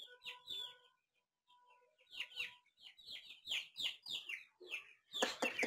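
A pen of young Aseel chicks peeping, a quick run of short, falling peeps that thins out for about a second before picking up again.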